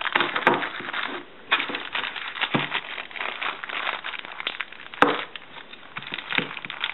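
Thin clear plastic bag wrapped round a mobile phone crinkling and rustling as it is handled and pulled open, with a sharp click about five seconds in.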